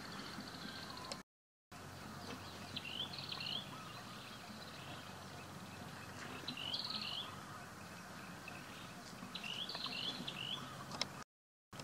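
A small bird singing a short phrase of quick rising chirps, three times a few seconds apart, over a steady background hiss. The sound cuts out completely twice, briefly.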